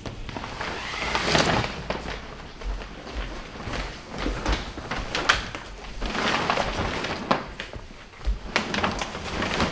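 Stiff sailcloth rustling and swishing as a large sail is gathered up and moved, with scattered clicks and knocks, the sharpest about five seconds in.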